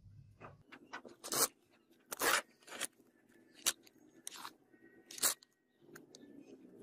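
Molding sand being packed and spread by hand around a pattern in a sand-casting box: a run of short, sharp crunches and scrapes, about six loud ones over four seconds, with softer gritty rustling between them.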